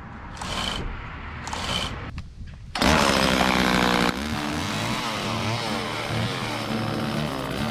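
Homelite Super 2 two-stroke chainsaw, with two short revs early on, then running loud from about three seconds in. Its engine pitch wavers up and down as it cuts into a tree branch.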